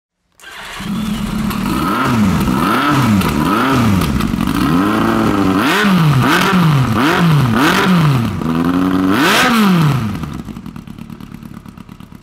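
Yamaha R1's inline-four engine with a Yoshimura slip-on exhaust, running and being blipped repeatedly: about six or seven quick revs, each rising and falling in pitch, then dropping back to an uneven idle about ten seconds in.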